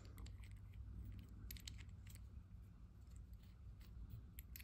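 Near silence with a few faint, short clicks of small metal parts being handled, as knurled brass thumbscrews are unscrewed from a lathe crotch center.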